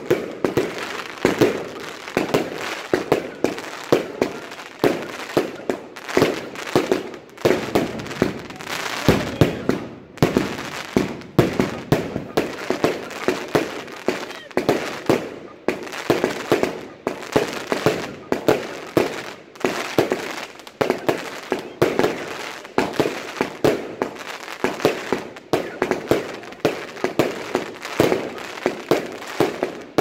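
Evolution Fireworks 'Snowstorm' fireworks cake firing a continuous volley of shots. The bangs come about two a second, each shot bursting in gold trailing stars.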